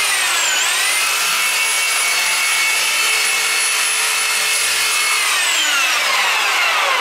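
Reciprocating saw cutting through a Christmas fir's branches and trunk: a steady motor whine that dips briefly in pitch about half a second in, holds, then falls in pitch over the last two seconds as the motor winds down.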